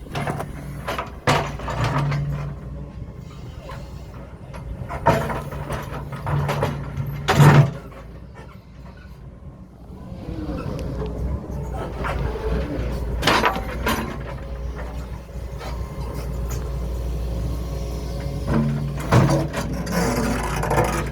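Excavator engine running, its hum rising at times as it works, with several sharp knocks and clunks from the boulders being handled; the loudest knock comes about seven seconds in.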